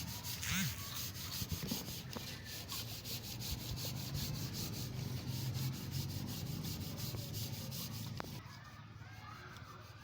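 Rhythmic hand scraping or rubbing, about five strokes a second, stopping about eight seconds in.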